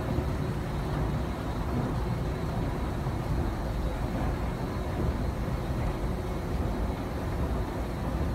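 Steady low rumble of a running escalator and the metro station around it, with a faint hum and no distinct knocks or voices.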